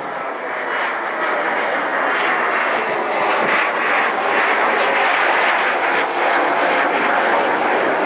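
Airbus A330-900neo jet airliner's Rolls-Royce Trent 7000 engines passing close on landing approach: a loud, steady jet rush with a high whine that slowly falls in pitch as it goes by.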